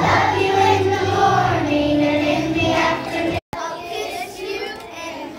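A group of young children singing together with music. About three and a half seconds in, the sound cuts out for an instant and comes back quieter.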